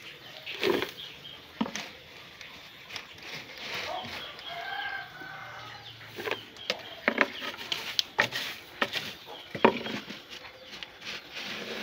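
Knocks and rustles of dry rice-husk bedding being handled and tipped out of a tray into a hedgehog cage; the sharpest knocks come in the second half. A chicken calls in the background about halfway through.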